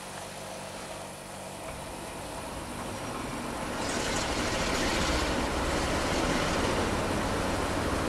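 Diesel train noise building up: a low engine rumble grows louder, and about four seconds in a loud rushing noise joins it and holds steady.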